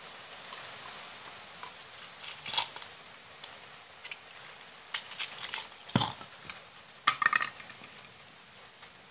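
Steel twist drill bits and small metal parts clinking and rattling as they are handled, in scattered clusters of light clicks, with one duller knock about six seconds in.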